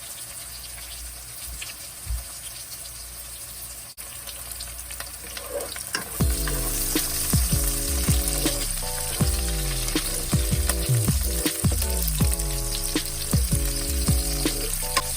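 Food sizzling as it fries in a pan, a steady hiss, with background music coming in about six seconds in.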